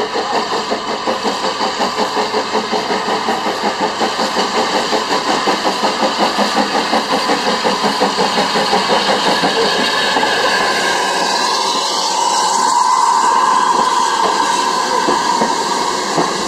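Saddle-tank steam locomotive working a train towards the listener, its exhaust beating fast and evenly at about four to five chuffs a second. About ten seconds in the beats fade into a steady rolling sound as the carriages pass close by.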